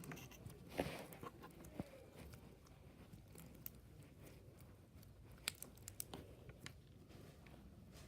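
Faint, scattered clicks and crunches of a bead-filled slime being stretched and squished in the hands, at irregular moments.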